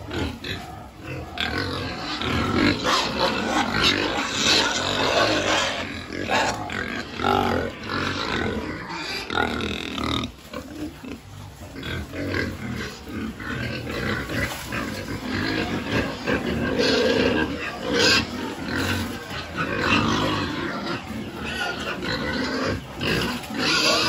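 A pen of domestic pigs grunting and oinking at feeding time, many animals at once in a continuous, overlapping clamour as they jostle for feed.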